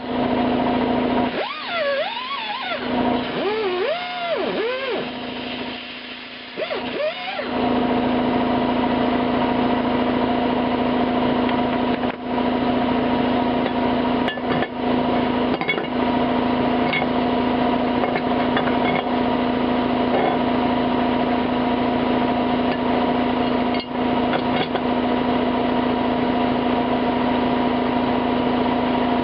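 Warbling, gliding electronic music tones for the first several seconds, then an electric power-tool motor spinning a cleaning wheel runs steadily at full speed, with a few brief dips in level as the vise base is worked against it.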